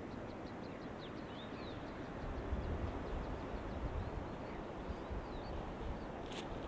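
Outdoor ambience: wind rumbling unevenly on the microphone over a steady rushing noise, with a few faint bird chirps and one sharp click near the end.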